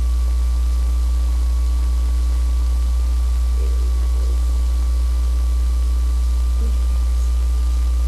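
Loud steady low electrical hum with a thin steady whine above it, mains hum carried on the recording. Faint brief sounds come through it about four seconds in.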